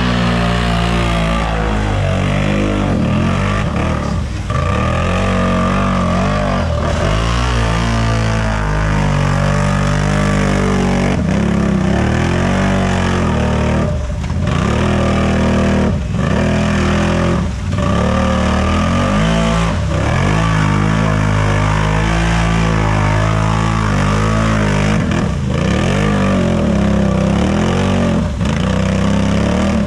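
Unlimited-class mud-racing machine's engine revving hard at high rpm. The revs drop and climb back again and again, every couple of seconds, as the throttle is worked through the mud.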